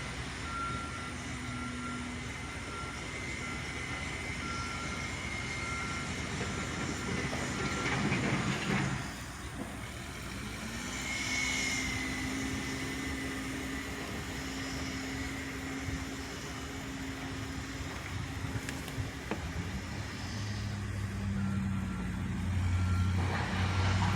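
Backhoe's diesel engine running with its reversing alarm beeping in steady repeated pulses, the engine pitch rising about ten seconds in, with a brief rushing noise of gravel being worked around a third of the way through.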